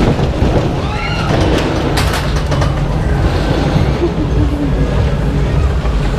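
Mack Wild Mouse coaster car climbing its chain lift hill: the lift chain and drive run steadily with a low rumble and rattle, with a few scattered metallic clicks in the first half.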